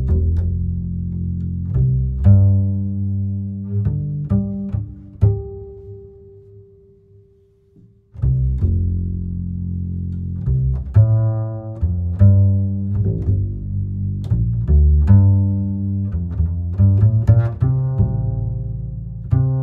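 Instrumental background music in a low register, with sharply struck, plucked-sounding notes. It dies away about six seconds in and starts again around eight seconds.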